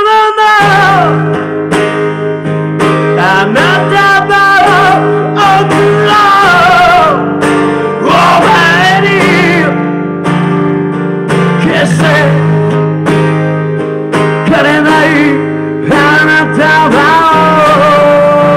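A rock song played live on acoustic guitar and electric bass, with held bass notes under a wavering melodic line.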